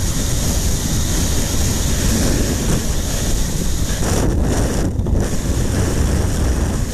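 Freefall wind rushing loudly over a helmet-mounted camera's microphone, a steady roar of wind noise. The high hiss drops out briefly twice, around four and five seconds in.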